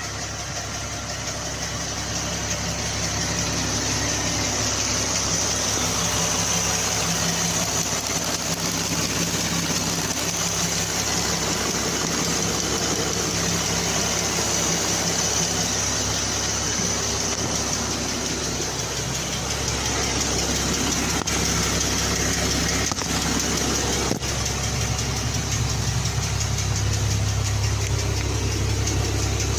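2014 Jeep Wrangler's 3.6-litre Pentastar V6 idling steadily with a fast, light ticking from the valvetrain: a hydraulic valve lifter tick.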